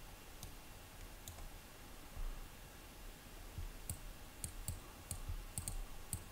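Computer mouse clicks: a couple of single clicks early, then a quicker run of clicks, some in close pairs, in the second half.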